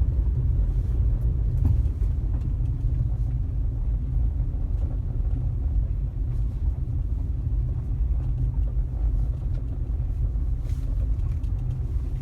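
Car driving along: steady low rumble of engine and road noise.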